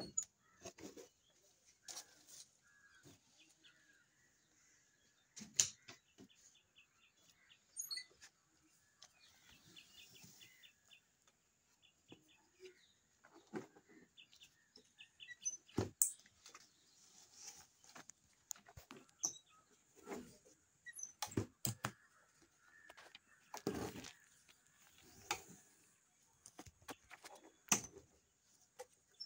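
Irregular knocks, clicks and rustling from printed non-woven bags being handled and shifted about.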